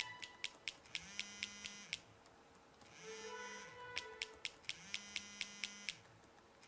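Flip phone on a desk ringing and vibrating, a buzzing tone that comes about once every two seconds and lasts about a second each time. Quick clicks of laptop keyboard typing run between and under the rings, pausing twice.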